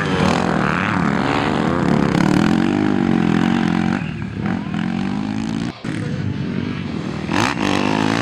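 Motocross dirt bike engines revving, their pitch rising and falling repeatedly as the throttle is opened and closed, with a brief drop-out a little past the middle.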